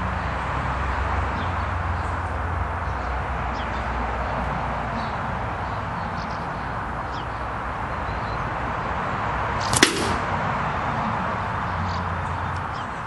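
Brocock Contour .177 air rifle fired once: a single sharp crack about ten seconds in, over a steady background hiss.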